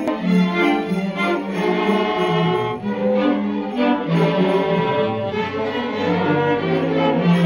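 Bowed string instruments playing music in held notes, the nearest one bowed right at the microphone, with lower string notes sounding beneath in the second half.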